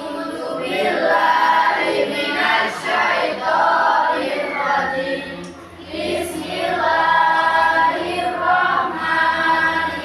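A class of schoolchildren chanting an Islamic prayer together in a sing-song chorus, phrase by phrase, with a brief pause for breath about five and a half seconds in.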